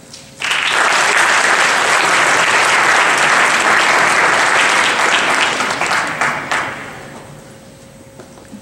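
An audience of schoolchildren applauding. The clapping starts about half a second in, holds steady, then dies away over the last two seconds.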